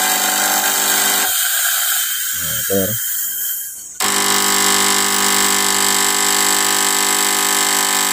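Fog machine's small electromagnetic vibratory pump buzzing steadily over a high hiss as it feeds fog fluid to the heater to make smoke. The buzz drops out about a second in and comes back suddenly about four seconds in.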